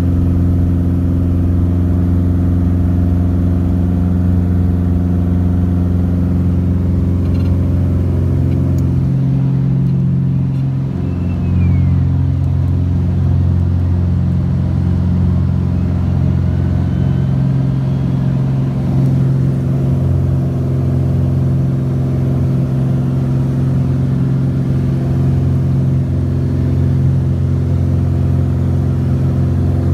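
A light plane's piston engine and propeller, heard from inside the cabin, running steadily while taxiing. About eleven seconds in the drone changes and grows louder as power comes up for the takeoff, then holds steady through the climb-out.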